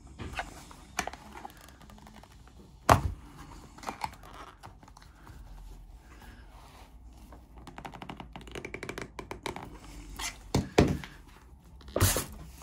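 Plastic knocks and clicks as a Land Rover Freelander 2 armrest adjuster knob is levered and worked off its tight splined bar with a window scraper. Irregular sharp knocks, the loudest about three seconds in and a few more near the end, with runs of small clicks between.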